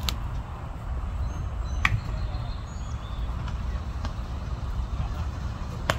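Infield ground-ball practice: a few sharp knocks of baseball on bat or glove, the loudest about two seconds in and another near the end, over a steady low rumble. Faint short high chirps come in between.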